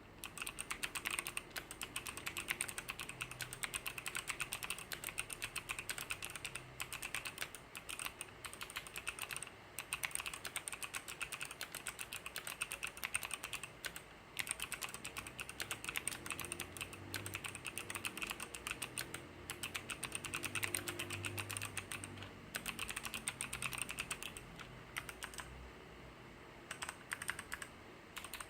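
Typing on a Hansung MKL16S keyboard with Kailh optical pink switches: a fast, continuous run of key clicks, thinning out near the end.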